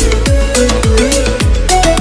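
Electronic dance music with a deep kick drum about twice a second under short synth notes.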